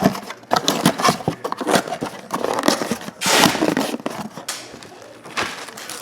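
Trading-card packs being opened and sorted by hand: quick scraping and snapping of cards and wrappers, with a longer rip or crinkle of a pack wrapper a little past the middle.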